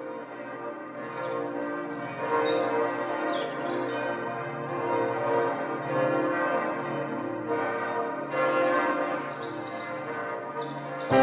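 Church bells pealing and fading in gradually, with short high falling chirps over them in two spells.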